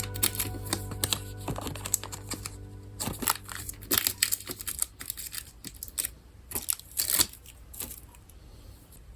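Plastic packaging crinkling and tearing as items are unwrapped and handled, a run of irregular sharp rustles and clicks. Background music plays under it and fades out in the first few seconds.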